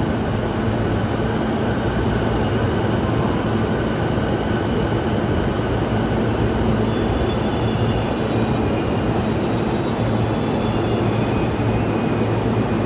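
E233-7000 series electric multiple unit on the move: a steady rumble of motors and wheels on the rails, with a faint high whine coming in about halfway.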